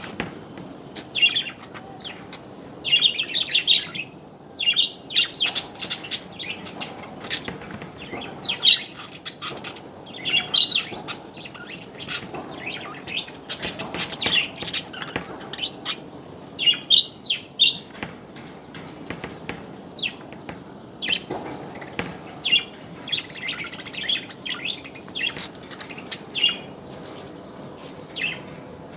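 A group of small birds chirping and twittering, with short high calls overlapping almost without a break.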